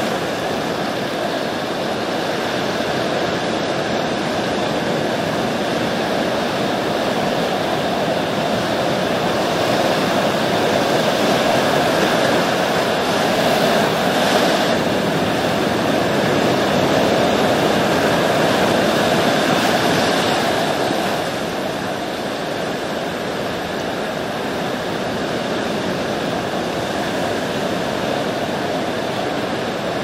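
Ocean surf: a steady rush of waves, swelling louder in the middle and easing off about two-thirds of the way through.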